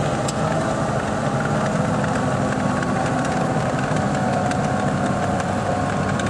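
Engine of an antique tracked snowcat running steadily at low speed as the machine crawls across packed snow, with a few faint clicks over a steady drone.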